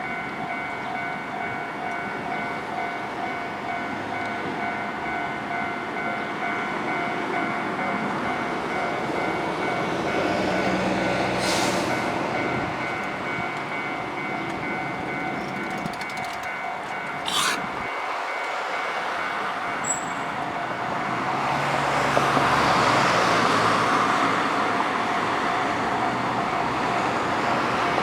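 Japanese level crossing warning bell ringing steadily as a KiHa 11 series diesel railcar approaches. The railcar's engine and wheel noise builds, getting loudest a little over twenty seconds in, with two short sharp clatters along the way.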